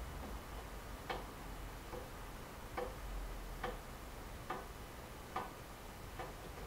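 AEG Lavamat washing machine in its last rinse and spin: short, sharp clicks repeating a little under once a second as the machine runs.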